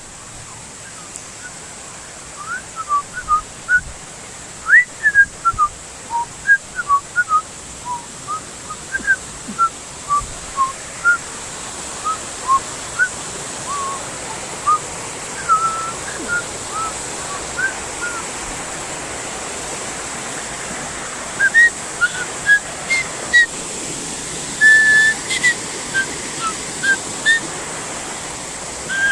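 A bird singing in short whistled chirps that jump up and down in pitch, two or three a second with brief pauses, over a steady hiss that slowly grows louder.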